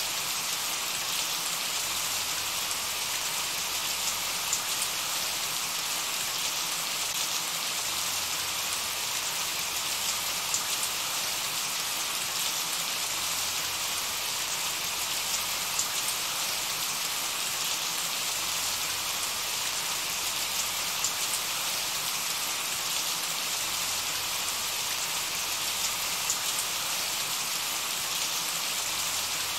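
Steady rain falling, an even hiss with scattered individual drops ticking close by.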